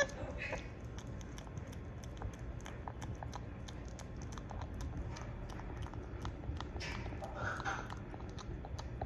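Beaver kit chewing a banana slice: a steady run of small wet clicks and smacks as it bites and munches. A brief high-pitched whine sounds right at the start.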